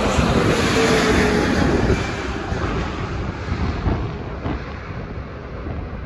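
Twin-engine jet airliner passing low overhead on final approach with its gear down. Its engine noise fades after about two seconds, leaving wind rumbling on the microphone.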